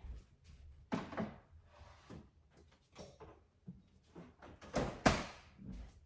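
Jars and containers being moved about on refrigerator shelves: a string of irregular knocks and clunks, the loudest about five seconds in.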